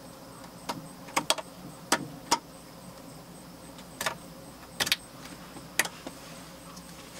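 About nine short, light clicks and rattles, spread irregularly, from a door wiring harness and its plastic clips being handled while the tape holding the harness is cut.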